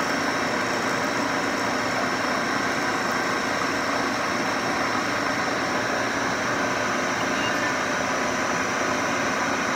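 CNC milling machine cutting a pocket with a two-flute roughing end mill: the spindle runs and the cutter chews through the metal with a steady, even machining noise carrying several steady tones.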